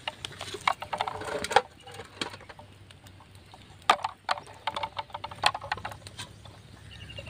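Eggs clinking on a steel plate and knocking against each other and the metal pot as they are put into water to boil. A scatter of short sharp clicks and knocks, busiest in the first second and a half, with a few more strikes later.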